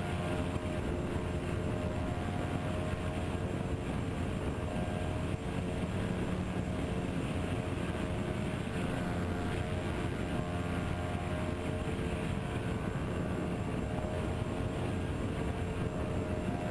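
TwinStar RC plane's two electric motors and propellers running steadily in flight, a steady hum of several tones over a rush of air.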